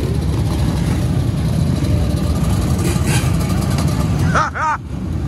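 Many dirt bike and ATV engines idling together, a steady low rumble from a crowd of machines, with a short shout near the end.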